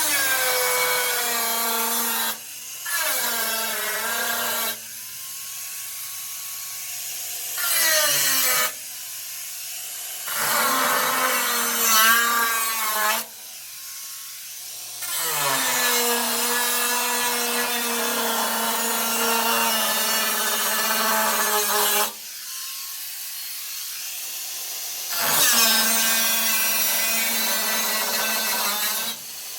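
Power tool motor running in long bursts of several seconds, stopping and restarting about a dozen times, its pitch rising and falling as it speeds up and slows down.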